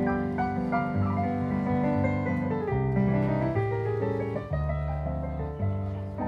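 Soothing background jazz on piano: slow chords over low notes that change about once a second.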